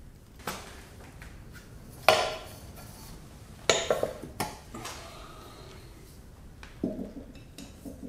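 Metal clanking: steel tongs and a crucible knocking against the steel body of a propane melting furnace, several sharp clanks with a short ring, the loudest about two seconds in, a quick cluster around four seconds, and a duller knock near the end.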